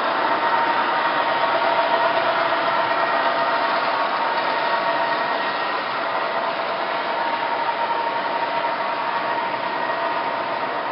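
O-gauge three-rail model trains running on the layout: a steady mechanical hum of motors and wheels on track, with a few steady whining tones running through it.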